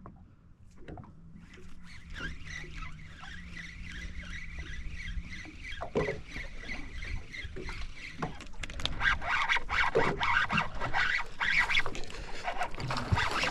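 Water splashing and sloshing at a small boat's side, growing louder over the last few seconds, with a steady low hum that stops about five seconds in.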